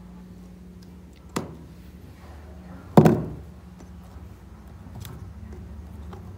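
Two sharp knocks on a tabletop about a second and a half apart, the second louder with a brief ring-off, then a faint tap a couple of seconds later, over a low steady hum.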